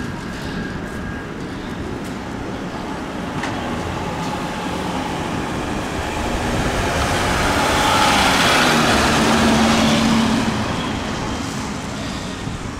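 Mercedes-Benz Sprinter ambulance driving past, its engine and tyres on the brick road swelling to loudest about eight to ten seconds in, then fading as it moves away.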